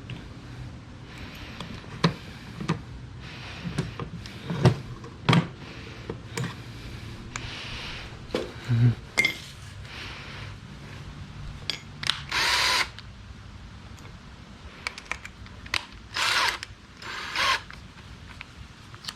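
Hand work on a wooden door frame: a series of sharp knocks and taps, then a few short bursts of a power drill, the longest just under a second.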